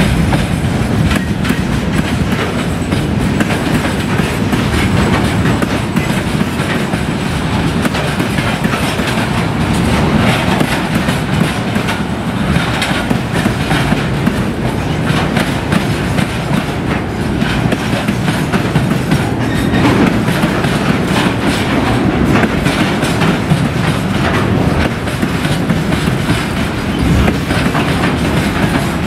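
Freight train wagons (open gondolas, a covered hopper and tank cars) rolling past close by: a steady heavy rumble with the wheels clattering continuously over the rail joints.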